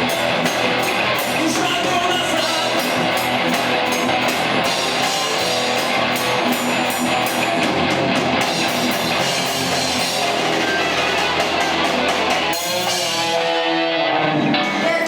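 Live rock band playing, with electric guitar and drum kit. The drumming stops about twelve seconds in and the sound thins out.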